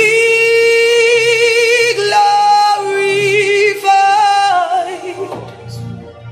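Gospel worship music: a high lead melody holds long notes with vibrato and slides between them, over a soft backing track.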